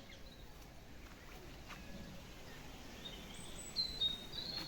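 A bird singing a few high, clear whistled notes in the second half, over faint outdoor background noise.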